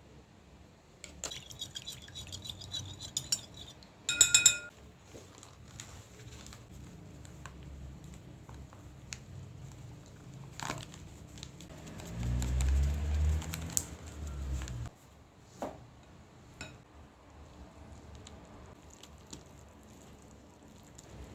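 Kitchen utensils and dishes clinking and knocking during food preparation. There is a run of small clinks early on, a short loud ring about four seconds in, and a low hum for a few seconds past the middle.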